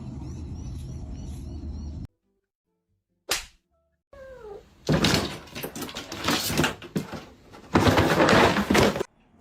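A pet animal crying out: a short falling cry about four seconds in, then two long, loud, harsh calls. Before that, a steady low rumble with small chirps stops suddenly and leaves a brief silence.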